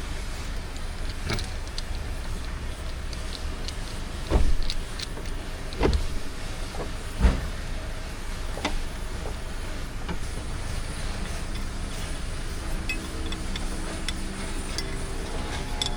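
Mechanical repair work: scattered metal clicks and clinks over a low steady rumble, with three heavy thumps about four, six and seven seconds in.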